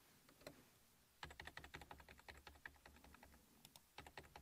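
Faint rapid keystrokes on a computer keyboard: a burst of quick clicks lasting about two seconds, starting just over a second in, and a few more near the end.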